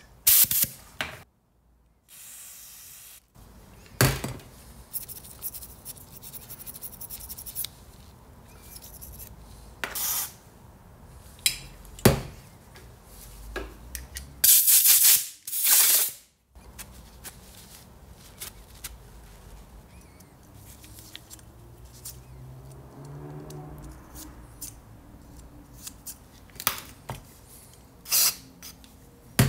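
Compressed air blown in short blasts through the jets and passages of a Dellorto carburettor to clear them, with clicks and knocks of the parts being handled between blasts. The two longest blasts, about a second each, come just past halfway.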